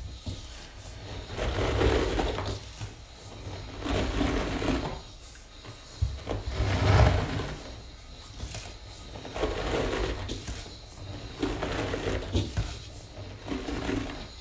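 Dry sponge caked with Comet cleanser powder, squeezed and rubbed by hand against the powder: a noisy scrunching that swells and fades about six times, roughly every two to three seconds, with low bumps from the handling.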